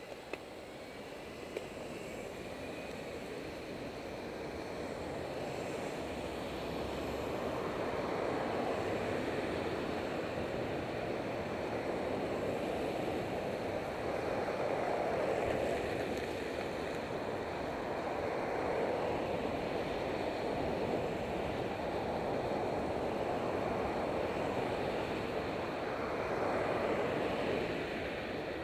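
Traffic noise from cars passing close by on a multi-lane highway, heard through a bicycle helmet camera with wind on its microphone. It builds over the first several seconds and then swells and fades as vehicles go by, with two small clicks near the start.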